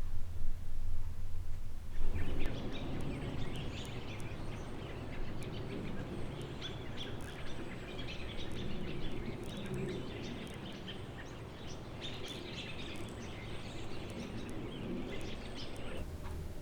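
Outdoor ambience of birds chirping over a steady hiss, after a low rumble in the first two seconds.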